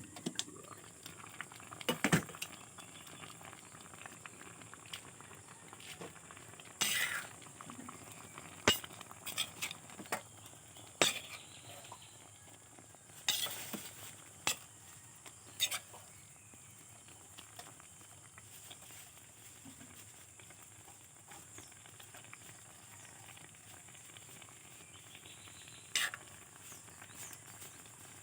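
A metal utensil clinking against cookware about eight times at scattered intervals, over a steady low hiss.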